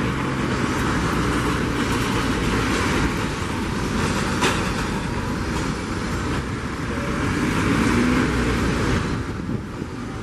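Steady engine rumble and hiss from a Boeing 767 freighter being towed by a tug.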